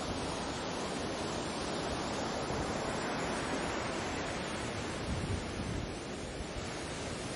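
Sea surf: waves washing in as a steady rush, easing a little near the end.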